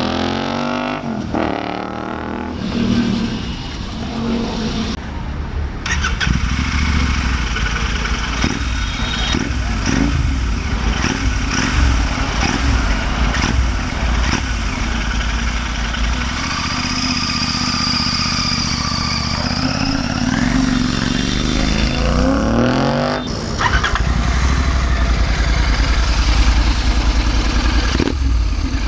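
Royal Enfield Continental GT650's 648 cc parallel-twin engine running through an aftermarket Red Rooster performance exhaust, with a BMC air filter fitted. It is revved and let back down: a rev falls away right at the start, the engine runs unevenly for a while, then it is revved up again about twenty seconds in and holds at a louder, steadier pitch.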